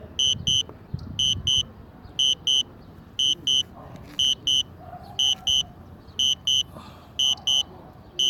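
Low-battery warning of a DJI Spark drone's controller: short high-pitched beeps in pairs, repeating about once a second, signalling that the flight battery is running low.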